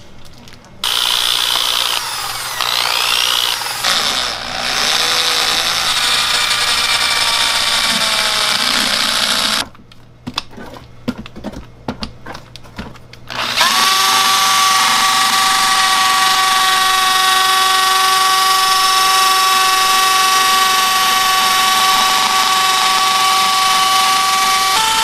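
Handheld electric paddle mixer, drill-driven, whirring as it stirs thick red chili-paste marinade in a plastic tub. It runs for most of the first ten seconds, stops for a few seconds in which only scattered knocks are heard, then starts again with a steady whine.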